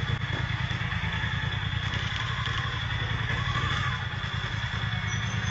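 Vehicle engine idling, a steady low rumble with a thin steady high whine above it, as picked up by a dashcam inside the vehicle.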